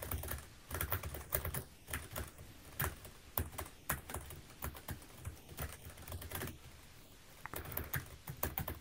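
Typing on a Keychron K3 V2 ultra-slim mechanical keyboard: quick, irregular key clicks, a light clicking, with a short pause about three-quarters of the way through.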